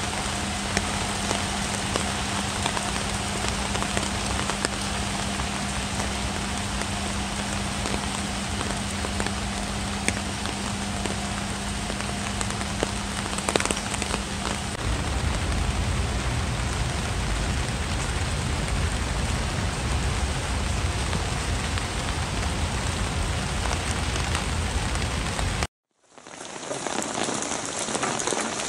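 Steady rain falling on wet ground, an even hiss of drops, with a faint steady low hum under it for roughly the first half. Near the end the sound drops out for a moment and the rain resumes with a duller tone.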